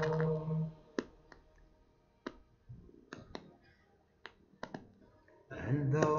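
A man's held sung note breaks off under a second in, then a pause filled with about nine sharp, dry clicks at irregular intervals, before the singing starts again near the end.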